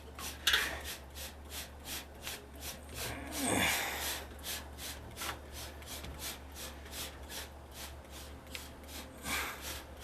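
Hand trigger sprayer squirting lime-scale cleaner onto an ice machine's evaporator coil in quick repeated pumps, about three short hissing sprays a second, over a steady low hum.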